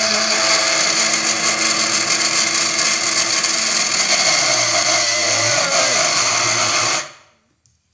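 Electric countertop blender with a glass jar running at full speed, blending cooked instant noodles with white coffee, its motor pitch dipping briefly past the middle. It is switched off about seven seconds in and the motor stops quickly.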